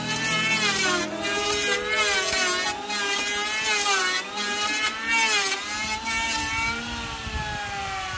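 Electric hand planer cutting a hardwood board in repeated short passes, its motor pitch dipping under load and recovering about once a second. Near the end the passes stop and the motor pitch begins to fall as it is released.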